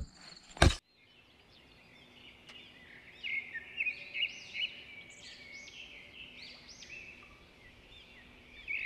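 A sharp click a little under a second in, then from about three seconds on a songbird singing a run of short, clear, warbling phrases.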